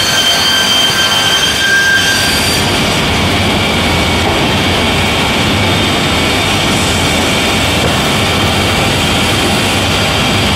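Gypsum board PVC laminating line running: a loud, steady machine noise with high whining tones over it that fade out about two and a half seconds in.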